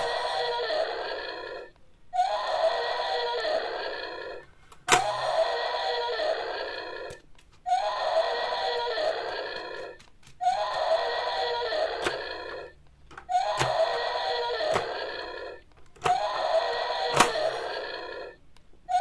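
The same short sound clip repeating about every two and a half seconds, seven times, each time lasting about two seconds and starting abruptly, with a few sharp clicks of hard plastic toys knocking.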